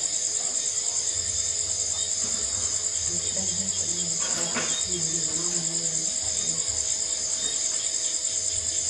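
Crickets chirping in a steady, high-pitched pulsing chorus, with a short rustle about halfway through.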